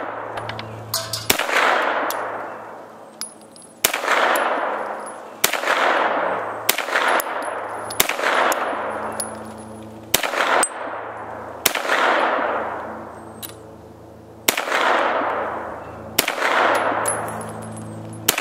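Double Star 9mm AR-15 pistol firing single shots at a steady slow pace, about ten of them one to two and a half seconds apart. Each report trails off in a long echo.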